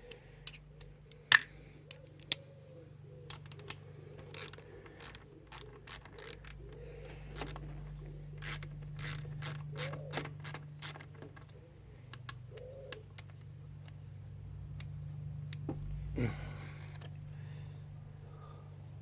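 Irregular metallic clicks and clinks of hand tools and small metal parts being handled, coming quicker in the middle stretch, over a low steady hum.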